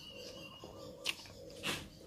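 A short slurp of hot soup sipped from a spoon near the end, after a light click about a second in.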